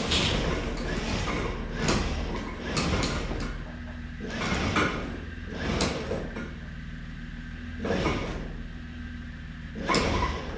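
Metal scraping and rattling several times from work on a stripped car body, heard over a steady low hum.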